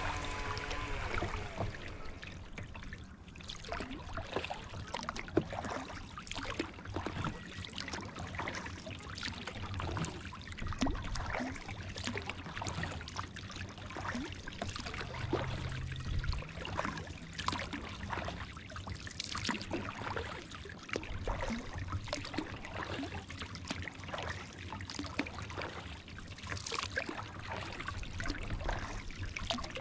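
Kayak paddling: water splashing and dripping off the paddle blades in irregular small splashes.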